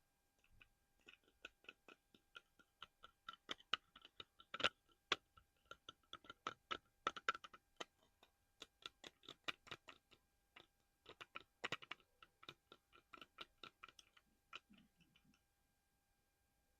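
Fingernails tapping quickly and lightly on a small hard collectible, many crisp taps in irregular runs with a brief ring to each, as an ASMR trigger. The tapping dies away about a second before the end.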